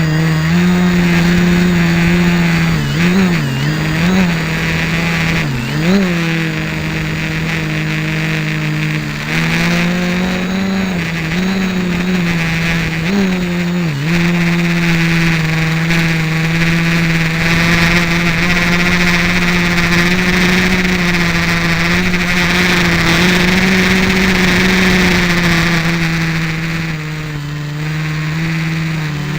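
GAUI 330X electric quadcopter's motors and propellers running in flight: a steady buzzing hum whose pitch dips and swings briefly several times in the first half.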